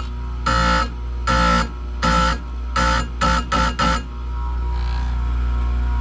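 Electric Oregon saw-chain grinder running with a steady hum while its wheel is brought down onto a clamped chain cutter tooth in about seven short grinding touches, the last four in quick succession. After about four seconds only the motor's hum remains.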